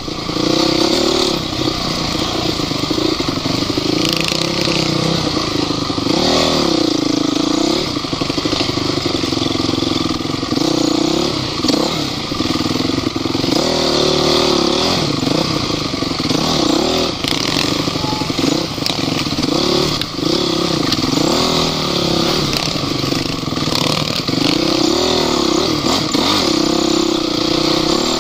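Off-road vehicle engine running hard, its revs rising and falling again and again as it is driven over rough terrain, with some clatter.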